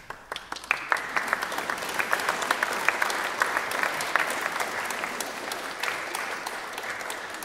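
Audience applauding: it starts with a few separate claps and within a second or so fills into steady, dense applause, which begins to thin near the end.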